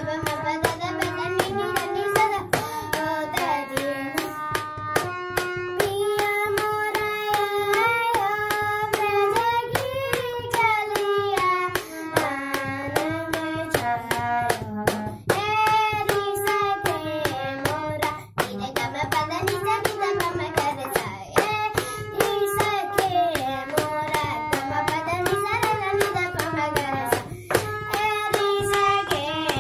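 A boy singing an Indian classical melody, his voice gliding and ornamenting between held notes, while accompanying himself on a harmonium with steady held reed tones. Many short clicks run through it.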